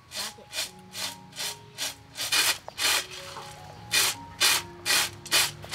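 Roasted peanuts tossed and shaken on a tray to winnow off their loose skins: dry swishing rattles, about two a second, with a short pause a little past halfway.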